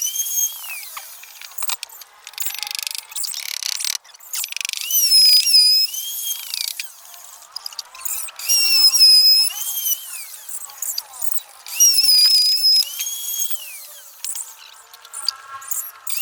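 Power drill run in repeated short bursts, about four times: each time the motor whines up to speed, holds briefly and winds down, with small knocks between bursts.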